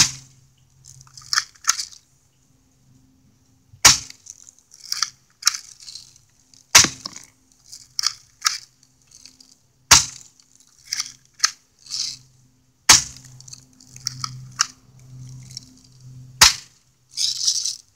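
Airsoft gun firing six single shots about three seconds apart, each a sharp crack, with quieter clicks and short rattles between the shots.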